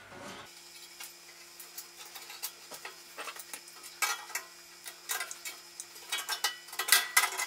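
Small metallic clicks and clinks of pliers working split pins into the thin sheet-metal end panel of a bandsaw stand, irregular throughout and loudest in a quick cluster near the end.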